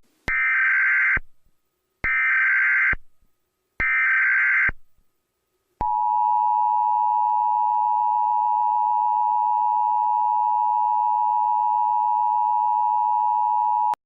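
Emergency Alert System broadcast tones: three short bursts of SAME header data, each a harsh electronic screech lasting about a second, then the EAS two-tone attention signal, a steady dual-pitch tone held for about eight seconds that stops abruptly. This sequence marks the start of an emergency alert message.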